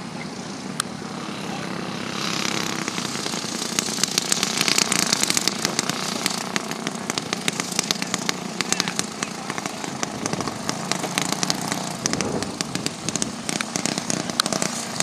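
Four-stroke Briggs & Stratton kart engine running at speed as the kart goes by, growing louder about two seconds in, with a lot of crackle on top.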